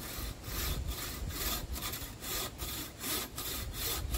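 Wooden-frame 21-inch Basecamp bucksaw cutting into a small log with quick, even back-and-forth strokes. Each stroke is a rasping of blade teeth through the wood, with a short break at each change of direction, about two to three strokes a second.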